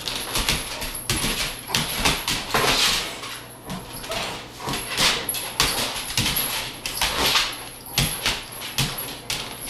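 Great Pyrenees dog romping and lunging at a cat, making a run of irregular noisy scuffles and huffs.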